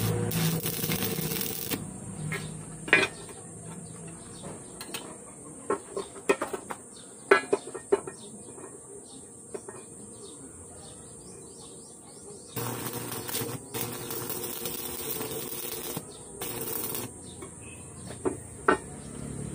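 Stick (arc) welding on a steel pipe: a hard crackling hiss for about the first two seconds, then again for about three seconds a little past the middle and once more briefly after. Between the welding runs come sharp metal knocks and clinks as the pipe is handled on the steel bench, the loudest knocks being the loudest sounds here.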